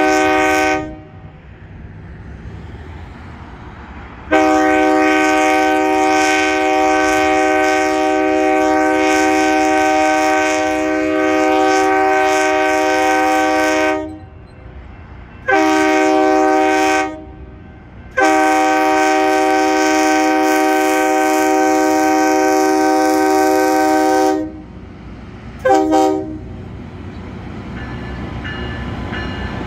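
Loram rail grinder train's air horn sounding at a grade crossing in separate blasts: the end of one just after the start, a long blast of about ten seconds, a short one, another long one of about six seconds, then a brief toot. After that, the low rumble of the grinder's locomotive grows louder as it nears.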